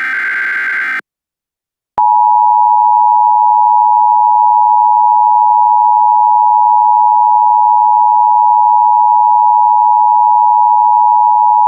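The tail of an Emergency Alert System digital header data burst ends about a second in. About a second later the EAS two-tone attention signal, 853 and 960 Hz sounded together, starts and holds loud and steady.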